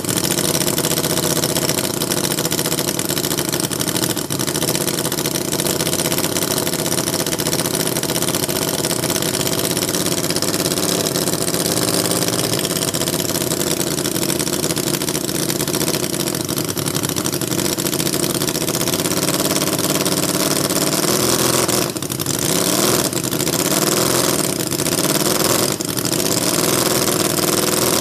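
Miniature V4 model engine running under its own power on its first run, steadily, then faltering with several brief dips in speed near the end. It is a brand-new engine, still untuned, its valves not yet seated and its rings not yet bedded in.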